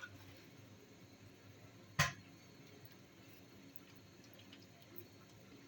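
Quiet room tone broken by one short, sharp knock about two seconds in, like a kitchen utensil or tray set down.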